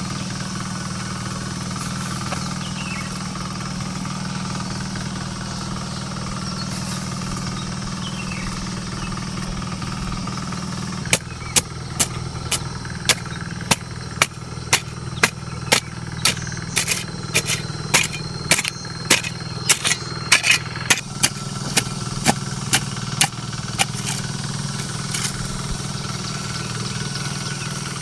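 A steady low engine-like hum. Partway through, a run of sharp clicks or knocks sets in, about two a second, then stops with the hum carrying on.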